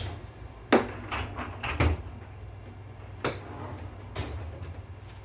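Dishwasher racks being pushed back in with a clatter of knocks, the sharpest about a second in, then the dishwasher door swung up and shut with a knock near the end.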